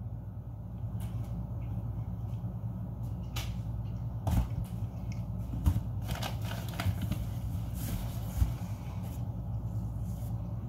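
Rummaging in a cardboard box packed with beer cans and snacks: scattered rustles, clunks and knocks as a can is pulled out, the loudest about four and a half and six seconds in, over a steady low hum.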